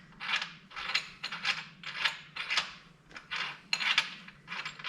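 Ratchet wrench tightening a bolt on a steel welding table: short metallic clicks, about two a second.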